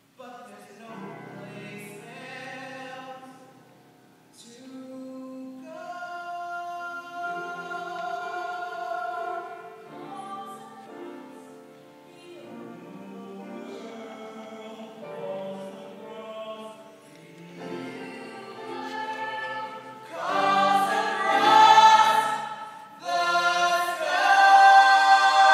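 A small mixed ensemble of men's and women's voices singing a musical-theatre number in harmony, with long held notes. It swells to loud sustained chords in the last few seconds.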